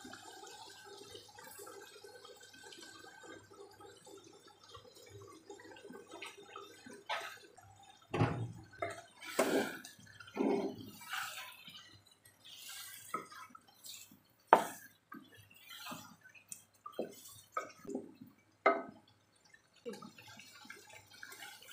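Dark soy-sauce gravy with beef bubbling and simmering in a non-stick pan. From about seven seconds in, a wooden spatula scrapes and knocks against the pan as the meat is stirred.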